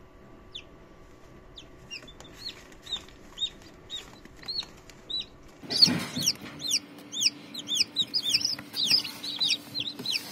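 Newly hatched chicks peeping in an egg incubator, each peep a short high note that rises and falls. The peeps come one at a time at first, then grow faster and louder after about six seconds, over the faint steady hum of the incubator's fan.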